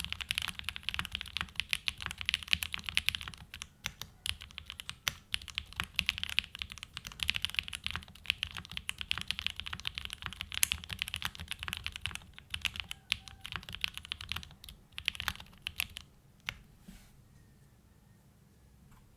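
Continuous fast typing on a Tofu65 2.0 mechanical keyboard with hand-lubed Gateron Summertime switches, a polycarbonate plate, case and mid foam, and GMK Olive keycaps. The keystrokes are dense and steady, then thin to a few single presses and stop about three seconds before the end.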